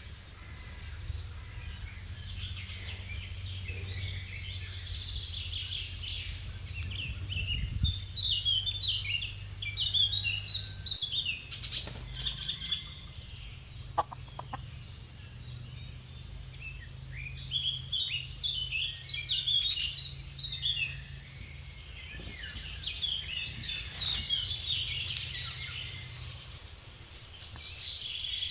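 Small birds chirping and twittering in repeated bursts of quick, high notes, over a low steady hum.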